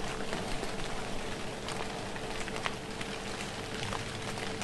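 Light rain pattering steadily: a soft hiss dotted with many small ticks of drops, over a faint steady hum.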